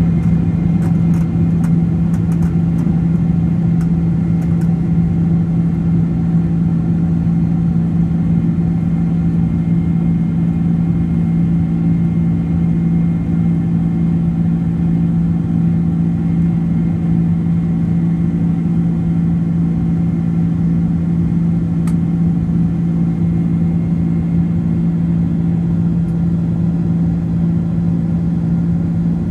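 Airliner engines heard from inside the cabin during the climb just after takeoff: a loud, steady drone with a strong low hum. A few faint clicks come in the first few seconds.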